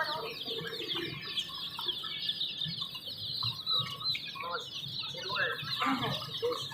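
A crowd of chicks peeping continuously, many short high cheeps overlapping, with occasional lower chicken clucks among them.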